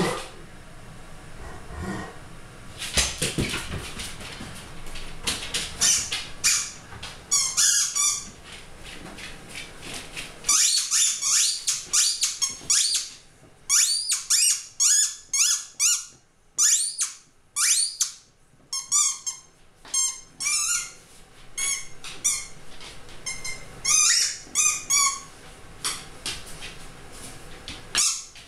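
A squeaky rubber dog toy squeaks again and again as a puppy chews and tugs it. The squeaks are short and high-pitched and bend in pitch, often coming in quick runs of several.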